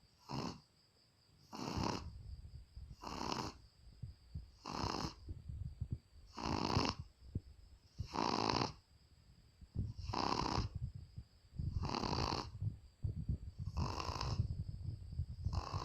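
Shih Tzu dog snoring in deep sleep, about ten snoring breaths in a steady rhythm, one every second and a half or so, with a lower rumble between them.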